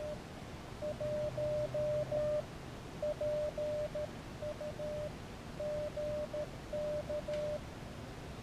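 Morse code sidetone from an Elecraft KX3 transceiver: a single steady tone keyed on and off in short and long pulses, grouped into characters, as a CW call is sent. It stops about three-quarters of the way through.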